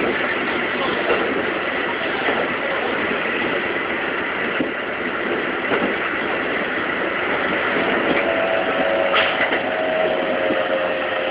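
Keikyu 2100-series electric train running at speed, heard from the front of the car: steady wheel-on-rail rumble and hiss. About eight seconds in, a faint whine from the Siemens GTO VVVF inverter comes in and falls slowly in pitch as the train slows for the next station, and a single sharp click sounds shortly after.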